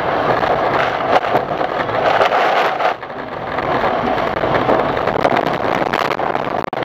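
Steady road and tyre noise with slush spray, heard from inside a car on a wet, slushy road. About three seconds in, the car slides off the road, and scattered knocks and thuds mix with the noise as it tumbles into snow.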